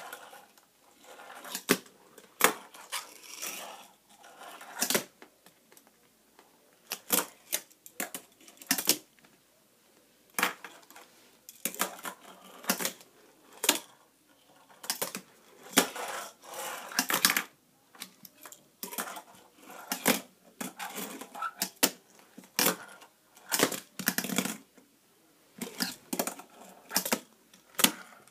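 Tech Deck fingerboard clacking on a wooden tabletop during tricks: irregular sharp clacks and taps of the board landing and popping, with a few short stretches of wheel noise lasting about a second.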